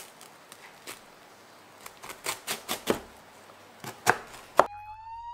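Knife cutting through a crisp toasted sandwich: a series of short dry crunches, the loudest a little past two seconds in and around four seconds. Near the end the crunching stops and a whistle-like tone starts, gliding slowly upward.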